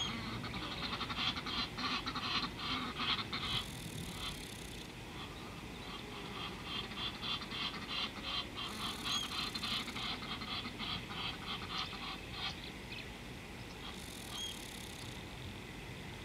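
Wild animal calls from the bush: fast, stuttering chirring calls in waves, strongest at the start and thinning out after about twelve seconds, with a faint high hiss that comes and goes every few seconds.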